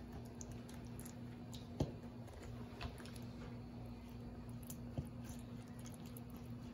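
Gloved hand placing chunks of chile-marinated raw meat into a metal pot: soft wet squishing, with a few light taps against the pot. A faint steady hum lies underneath.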